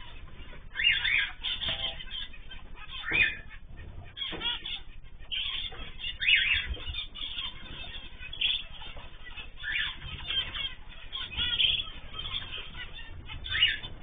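Mixed aviary of canaries, zebra finches and cockatiels calling, with short chirps and calls about once a second, some overlapping.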